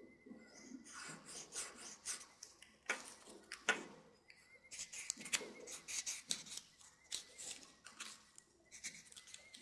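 Felt-tip marker drawing on folded origami paper in short, faint scratchy strokes, with light rustling of the paper being turned and a couple of sharp taps.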